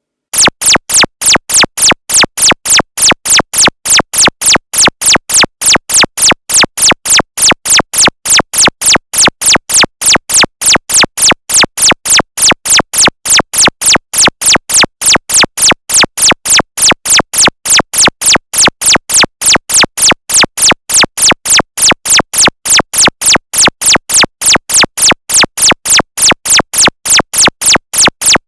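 Loud electronic synth pulse repeating evenly about three times a second, each pulse a short sweep, starting abruptly after silence.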